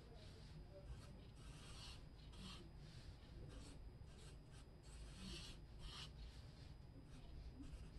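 Copic W8 warm gray marker nib stroking across toned gray sketch paper in faint, uneven swishes while the shadow core is laid in, the strongest strokes coming in clusters about two and five seconds in.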